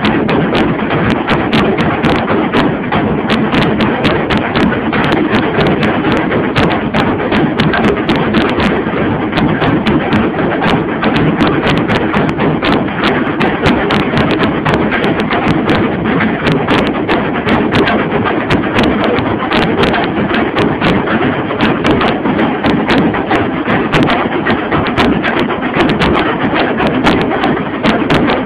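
Tasa and marfa drum ensemble beaten with sticks, a loud, fast, unbroken rhythm of many overlapping strokes.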